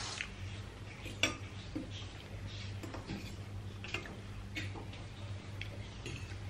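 Metal fork and spoon clinking and scraping against a ceramic bowl of thukpa noodle soup while eating, in scattered light clicks, the sharpest a little over a second in. A steady low hum runs underneath.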